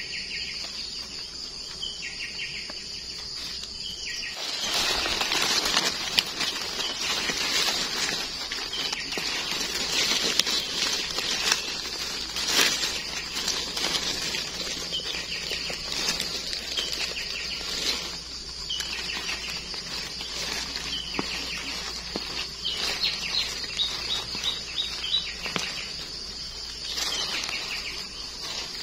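Dry leaves, grass and twigs rustling as gloved hands dig termite mushrooms out of the forest floor and handle them. Under it is a steady high-pitched background drone, with short bird chirps now and then, a quick run of them near the end.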